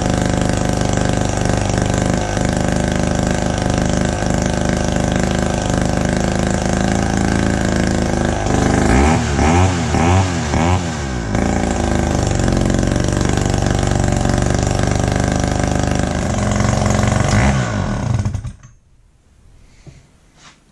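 Wright GS2016 gas-powered reciprocating saw's 65 cc two-stroke engine running steadily. About nine seconds in it is revved up and down several times in quick blips, then it settles back to a steady run. It shuts off about eighteen seconds in, leaving only a few faint clicks.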